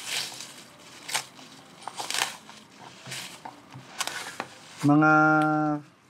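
Plastic cling wrap crinkling and rustling in short, irregular bursts as it is peeled off a balisong knife by hand. Near the end a voice draws out one long syllable, the loudest sound here.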